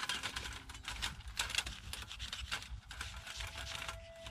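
A handful of moss is scrubbed against the metal panels of a folding camping stove, making irregular scratchy rubbing strokes.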